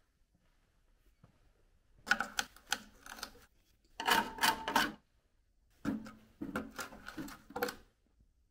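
A screwdriver rapidly tapping and scraping against rusted sheet-steel bulkhead panels, in three bursts of clattering clicks. The poking is checking how far the rust has eaten through the metal.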